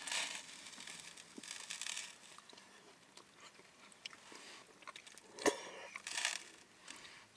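Slurping and chewing mouthfuls of fettuccine alfredo noodles, in a few short hissy bursts, with a sharp click a little past five seconds in.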